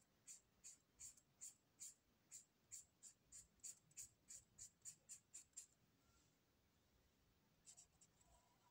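Faint scratching strokes of a felt-tip marker on paper, about three a second for the first five or six seconds, then a pause and a short cluster of strokes near the end.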